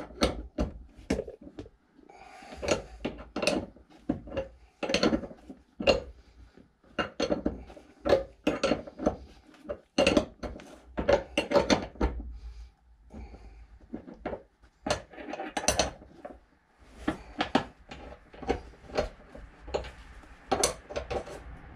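Irregular metallic clinks and knocks of steel bolts and a spanner being handled, as the seat-base bolts are fitted back in and tightened.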